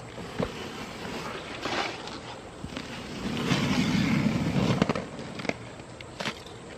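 Old, weathered RV roof covering being torn and peeled up by hand: a rough tearing rip that swells about three seconds in and lasts a couple of seconds, with sharp crackles and snaps of the brittle material before and after.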